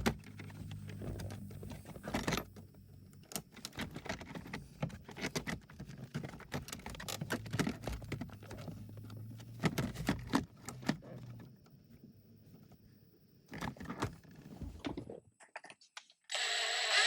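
Clicks, taps and rattles of plastic trim and small parts being handled and popped loose around an automatic shifter, over a steady low hum that stops about two-thirds of the way through. Near the end a loud burst of noise lasts about a second and a half.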